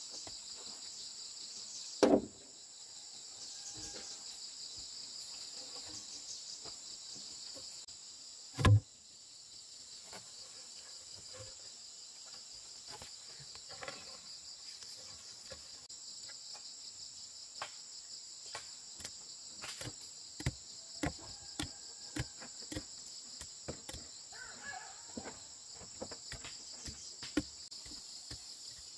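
Steady high-pitched insect chorus, with scattered knocks and two heavy thumps, about two and nine seconds in, from logs and planks being handled and set in place.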